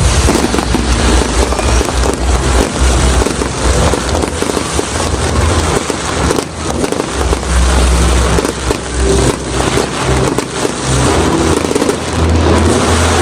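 A fireworks display going off continuously: dense crackling over deep, rumbling booms.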